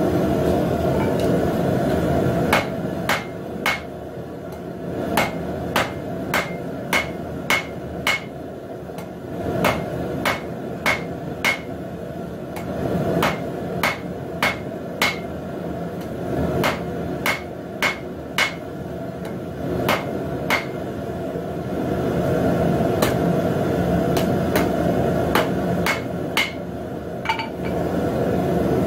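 Hand hammer striking hot square steel stock on an anvil in runs of several blows, about two a second, each with a short metallic ring. A steady low roar runs underneath.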